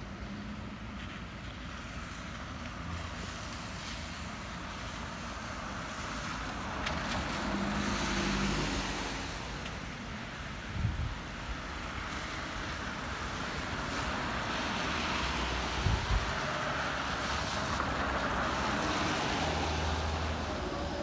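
Streetcar and car traffic passing on a rain-soaked street: a steady hiss of tyres on wet pavement that swells twice as vehicles go by. A couple of sharp low knocks come about halfway through.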